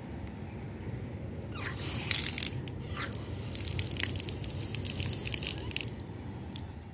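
A yellow plastic tap at a wudu station is opened, and water runs out in a stream and splashes below. The rush of water starts about one and a half seconds in, is loudest just after, then runs on more evenly.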